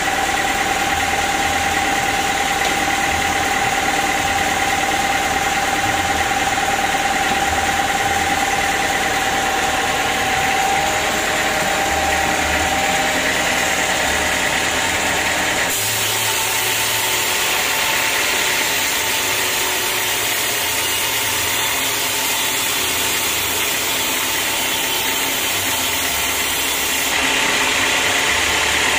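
Band sawmill running steadily with a mechanical drone. About halfway through, the sound shifts abruptly to a hissier tone as the band blade saws through a teak log.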